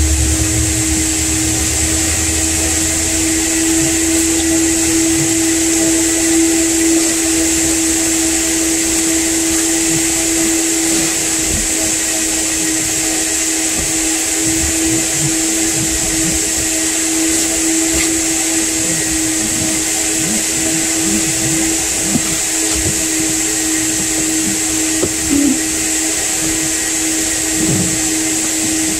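Vacuum cleaner running steadily while cleaning a car's interior: an even motor hum with a high airflow hiss. A low rumble dies away in the first few seconds, and a few light knocks come later.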